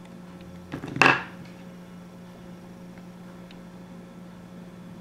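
A cutting tool snipping a small piece, about a millimetre, off the end of a 5.8 GHz stick antenna's wire element to tune it. There is one sharp snip about a second in, with a lighter click just before it, over a faint steady hum.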